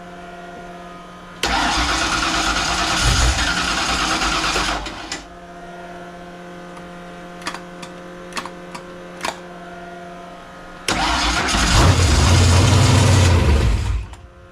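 Carbureted Fox-body Mustang V8 fires on a squirt of fuel, runs for about three seconds and dies, then fires again near the end and dies again. It will not stay running, a sign of carburettor trouble or a large vacuum leak on the freshly rebuilt Holley.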